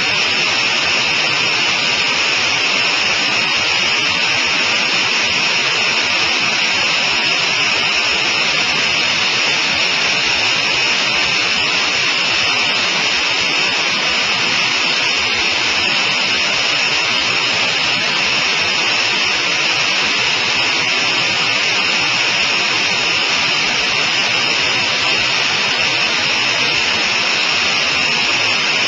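Loud, steady in-flight cockpit noise of a Sonerai I single-seat homebuilt aircraft, engine and airflow blended into an even, unchanging hiss.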